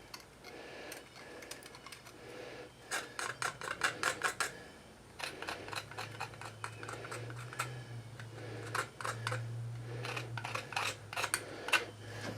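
Small parts and tools being handled on a workbench: a run of light clicks and taps in quick clusters, over a low steady hum.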